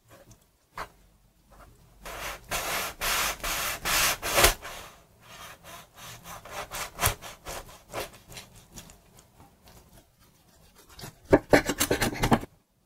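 A knife sawing through a crusty bun and a double cheeseburger on a wooden cutting board: a long run of rough back-and-forth strokes, then lighter strokes, with a burst of loud crackles near the end.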